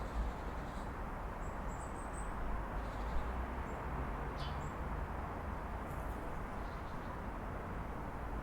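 Steady low rumble of city traffic heard through an open apartment window, with a few brief high bird chirps about one and a half seconds in and again midway.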